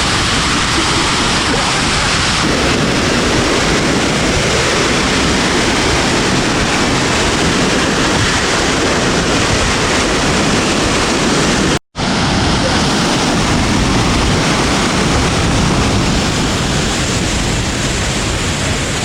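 Loud, steady rush of a waterfall's falling water, breaking off for an instant about twelve seconds in.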